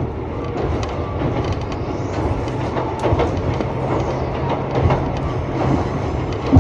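Former Tokyu electric train car running on the Iga Railway, heard from inside the passenger cabin: a steady rumble of wheels on track with a low hum and scattered clicks and knocks from the rails.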